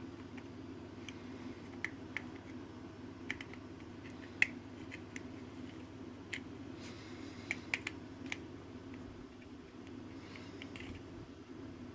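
Small, sharp clicks and taps, scattered irregularly, with a few brief scrapes, from small tools and parts being worked on a tiny smartphone as it is taken apart. A steady low hum runs underneath. The loudest click comes about four seconds in.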